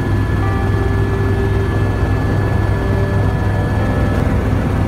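Helicopter in flight heard from aboard: a steady, loud drone of rotor and engine with a thin steady high whine over it.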